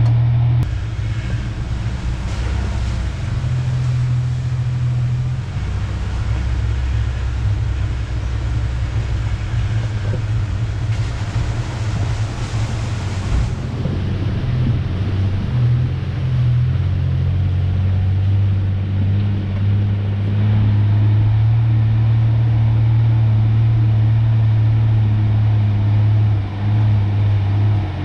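1993 Ford Ranger pickup driving on a dirt trail: a steady low engine drone with rumble that shifts in pitch now and then and holds a stronger, even note through the second half. About 11 seconds in comes a rush of hiss lasting a couple of seconds.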